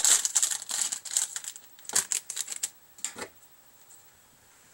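Hockey card pack wrapper being torn open and crinkled: a dense crackling rustle for about two and a half seconds, then a couple of short rustles about three seconds in.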